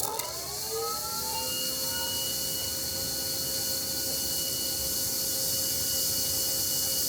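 EGO HPW3200 cordless pressure washer starting on its low setting: the motor and pump whine rises as they spin up over about a second and a half, then runs steadily under a constant hiss of water spraying through the 25-degree nozzle.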